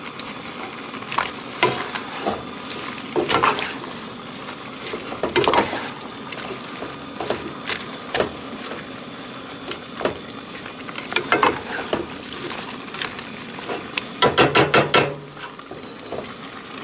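A spatula stirring chunks of beef and vegetables in a pot of stew, clacking and scraping against the pot now and then over a steady hiss. About fourteen seconds in comes a quick run of clatters.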